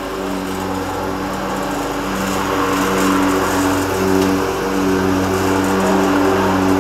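Exmark zero-turn riding mower's engine running steadily while mowing. It grows louder about three seconds in as the mower drives up close.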